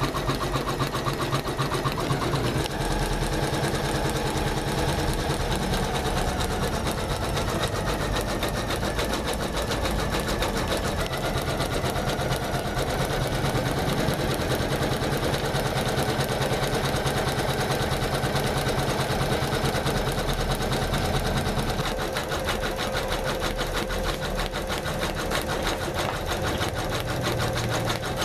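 Janome MC500E computerized embroidery machine stitching a design, its needle running in a rapid, even rhythm without stopping, a little quieter near the end.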